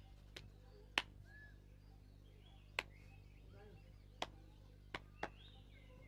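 Six sharp, short clicks or taps at uneven intervals, the loudest about a second in and near three seconds in, over a faint steady background with a few faint bird chirps.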